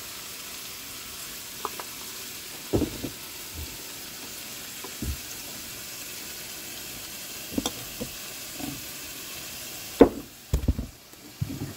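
Acorn squash, apples and green beans frying in olive oil in a skillet, a steady sizzle with a few light knocks scattered through it. The sizzle dips briefly about ten seconds in, among a few sharper knocks.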